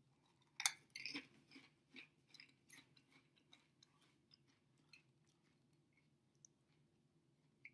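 A person chewing Pringles Scorchin' Cheddar potato crisps: a run of short, soft crunches begins about half a second in, then thins out and dies away after about four seconds.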